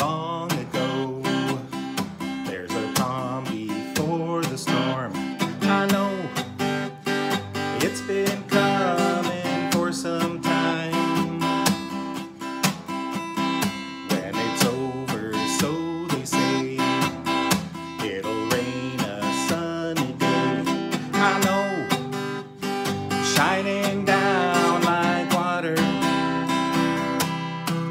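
Acoustic guitar strummed in a steady chord rhythm, with a man's voice singing over it at times.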